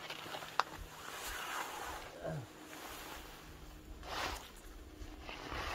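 Rustling and handling noises from a person moving about in snow and working with camping gear and fabric. The noises come in a few short bursts, with several sharp clicks.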